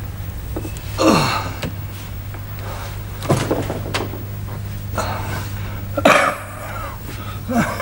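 A man gasping and groaning in distress: four short breathless cries, several falling in pitch, spaced a second or two apart, over a steady low hum.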